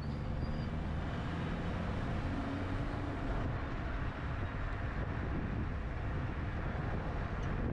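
Car driving along a road: steady engine hum under continuous tyre and road noise.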